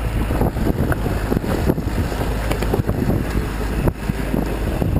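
Wind buffeting the microphone of a camera mounted outside a Jeep Wrangler JK diesel as it drives over a rocky off-road track, over the vehicle's low drone, with irregular knocks and rattles from the rough ground.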